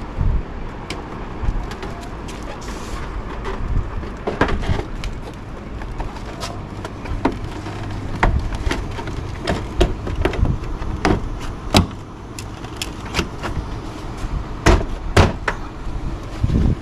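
Irregular sharp clicks and knocks of plastic grille and headlight trim on a Nissan Y62 Patrol being handled and pushed into their clips by hand, over a steady low rumble.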